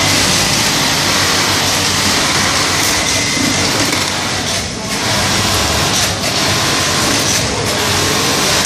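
Industrial lockstitch sewing machine (Juki) running as fabric is fed through: a steady, dense mechanical whirr with a couple of short dips partway through.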